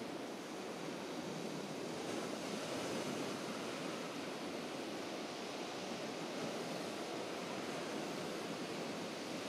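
Steady wash of sea surf on a shore, with no distinct breaks or other events.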